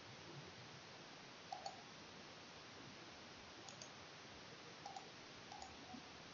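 Faint computer mouse clicks, a few scattered ones, several in quick pairs, over a steady low hiss.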